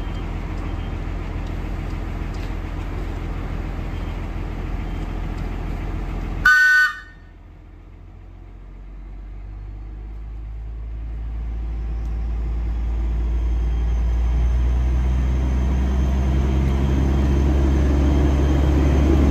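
NER electric railcar 3170 departing: a steady low hum, a short horn toot about six seconds in, then the railcar's hum building steadily louder as it moves off.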